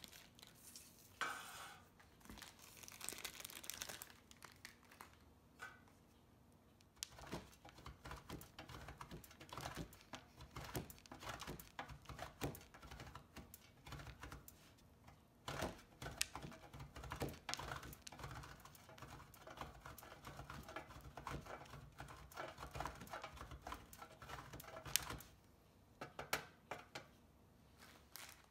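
A wedge of Parmesan cheese is rubbed on a metal box grater in a long run of quick, rasping strokes that stops near the end. In the first few seconds the cheese's plastic wrapper crinkles as it is opened.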